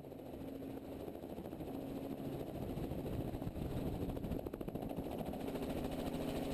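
Helicopter engine and rotor running with a steady low drone, growing steadily louder as power comes up to lift off from the ramp.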